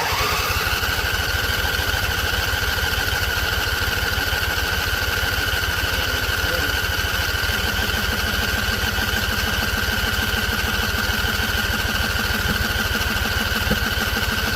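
Husqvarna Z254 zero-turn mower engine coming up to speed right after starting, then running steadily, with a steady high whine above the rhythmic engine note.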